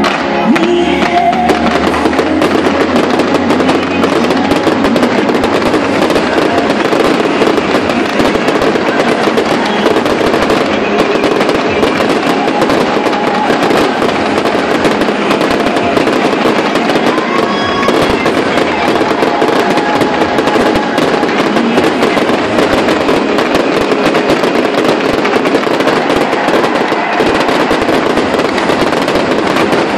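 Fireworks display: a dense, continuous rapid crackle of aerial shells and ground fountains with many bangs, going on without a break.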